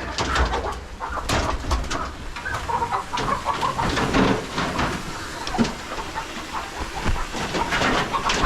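Chickens clucking and squawking, with many scattered knocks and scuffs.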